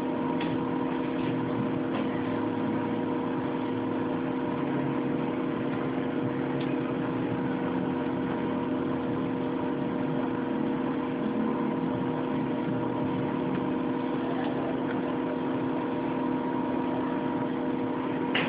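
Steady whirring hum of a computer's cooling fan, holding a few constant tones, with a few faint clicks near the start.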